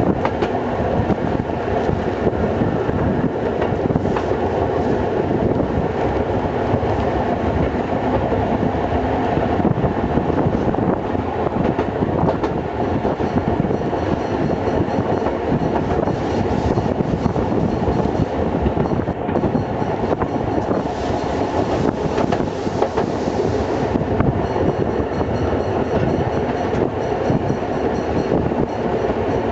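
Metre-gauge museum train on the move, heard from the open end platform of the first coach behind diesel locomotive V1: a steady running noise of wheels rolling on the rails, with a continuous clatter.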